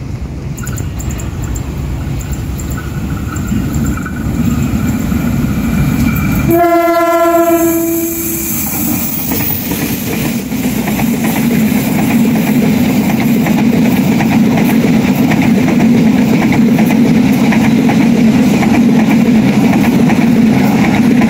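Diesel locomotive horn sounding one steady blast of about two seconds, then a passing train's wheels rumbling and clattering steadily on the rails, growing louder.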